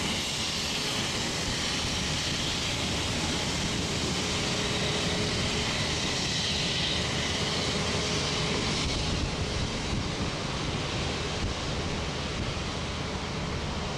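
Jet airliner engines running at taxi power: a steady rush of noise with a faint thin whine midway through.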